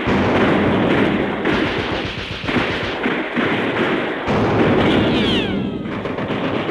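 Modern battle background from an old sound-effects record: continuous gunfire and artillery explosions. About five seconds in comes the falling whistle of an incoming shell.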